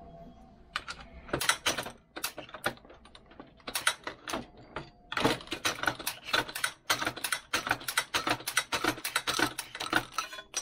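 Rapid, irregular small clicks and rattles from a Hornady 366 shotshell press as a hull is primed. The clicks are scattered at first and come thick and fast over the second half.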